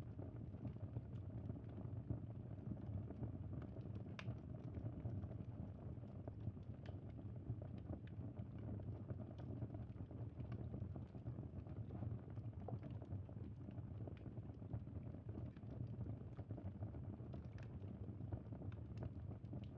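Campfire burning: a steady low rumble with scattered crackles and pops.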